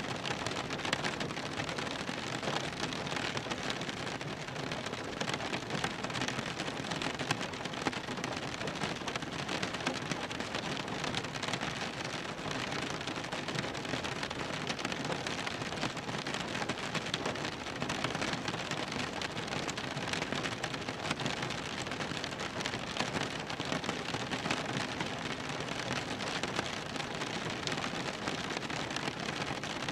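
Rain drumming on a car's roof and windows, heard from inside the cabin: a steady dense patter of drops with no let-up.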